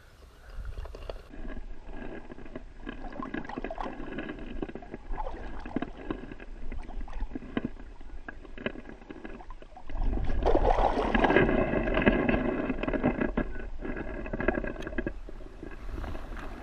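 Shallow river water sloshing and splashing around a hand holding an asp by the tail as it is revived for release; the water noise grows louder about ten seconds in and eases off near the end.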